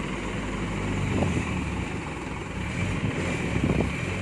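Hyundai Mega dump truck's diesel engine running steadily while the loaded truck is stuck in deep mud, with a couple of short knocks about a second in and again around three and a half seconds in.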